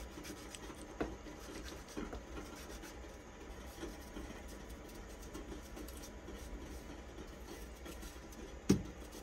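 Small kitchen knife slicing tomato and peeling cucumber, with a few soft clicks and taps of the blade and produce against a plate. One sharper knock comes near the end. A steady low hum runs underneath.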